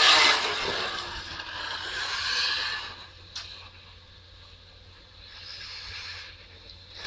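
Radio-controlled off-road car running on a dirt track, a high-pitched motor sound that is loud at first, fades away after about three seconds and comes back for a while near the end.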